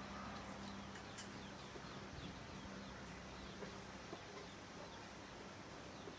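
Chicks peeping faintly in short, high, falling notes, with a few soft clucks from the mother hen.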